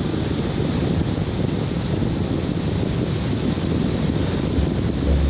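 Wind rushing over the microphone of a motorcycle moving at road speed, a steady noise, with the low drone of the Suzuki DR650's single-cylinder engine underneath, which comes up stronger near the end.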